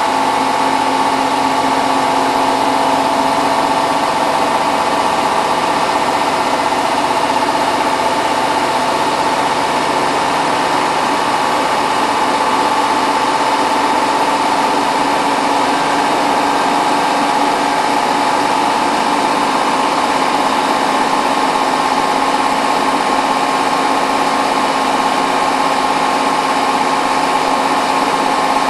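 Hotpoint WT960 washing machine in its final fast spin, the drum turning at high speed with a steady motor whine and hum that holds level throughout.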